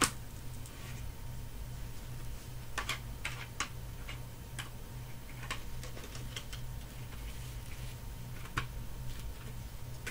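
Plastic Lego bricks clicking and tapping as they are handled and pressed together: scattered sharp clicks at uneven intervals, loudest right at the start and about eight and a half seconds in, over a steady low hum.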